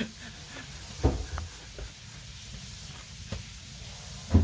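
Firewood burning in an agungi firebox: a steady hiss with a few crackles and pops. Two dull thumps, about a second in and again near the end.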